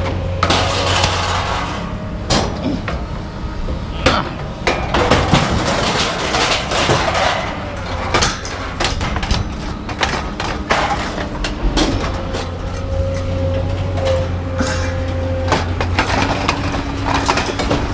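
Pieces of scrap clanking, cracking and crashing against each other as the load is pulled off, over a steady low hum of machinery running with a level whine, typical of a hydraulic unloading machine working.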